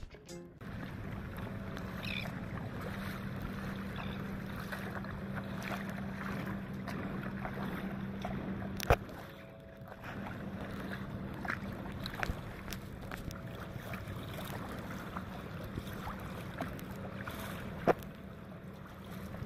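Sounds of a kayak out on harbour water: a steady wash of wind and lapping water with a low steady hum underneath, broken by two sharp knocks, about nine seconds in and near the end.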